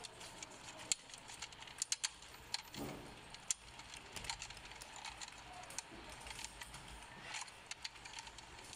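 Plastic clicks and light rattling from the removed central dashboard air vent assembly of a BMW 5 Series F10 being handled. Sharp clicks come at scattered moments, with several close together about two seconds in.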